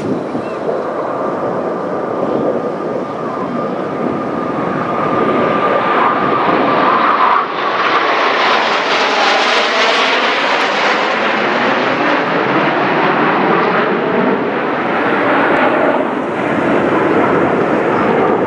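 Four Blue Angels F/A-18 Hornet jets flying low overhead in formation: a continuous jet roar with a steady high whine for the first several seconds, swelling and sweeping in tone as they pass directly overhead, then easing as they move off.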